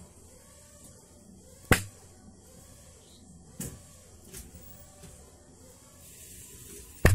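Sharp single hand claps used to switch a homemade clap-light circuit: a loud clap about two seconds in, a softer one a couple of seconds later, a faint one just after it, and another loud clap at the very end.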